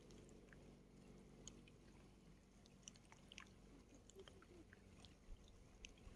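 Faint small waves lapping at a stony lake shore: scattered soft clicks and plinks of water over pebbles above a low steady rumble.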